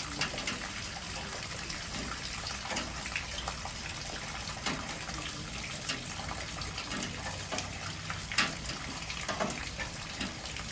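Steady heavy rain with water gushing from overflowing gutters, dotted with sharp drips and splashes; one louder tick about eight seconds in.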